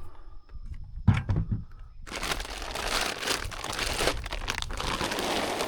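A few handling clicks, then from about two seconds in a steady crinkling rustle of a plastic bag of deer mineral attractant being handled and poured out.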